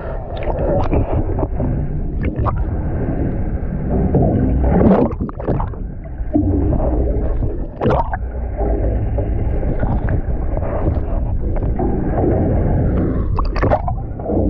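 Fishing boat's engine running under a wash of water, with a few sharp knocks on the deck about five and eight seconds in and again near the end.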